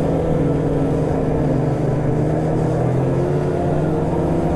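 Polaris snowmobile engine running steadily under way along the trail, its pitch rising and falling slightly.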